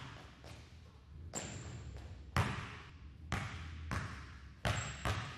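Basketball bouncing on a gym floor in a run of single bounces, roughly one a second, each followed by echo in the large hall.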